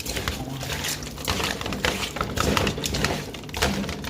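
Hands mixing seasoning into raw chicken gizzards in a bowl, wet squishing with many irregular small clicks and knocks.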